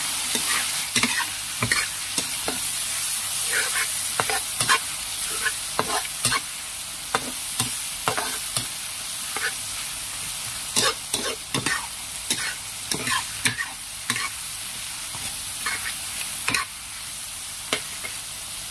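Chili sambal with dried squid and green tomato sizzling in oil in a wok, with a steady hiss, while a metal spatula stirs it, scraping and clinking against the wok at irregular intervals.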